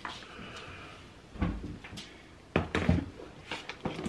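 A few dull knocks and thumps, about a second and a half in and twice more near three seconds, over faint room noise.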